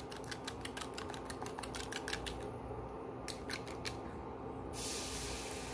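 Plastic spoon beating egg in a small glass bowl, clicking quickly against the glass at about eight clicks a second, with a few more clicks a little later. About five seconds in, a steady hiss starts as the beaten egg goes into the hot oiled pan and sizzles.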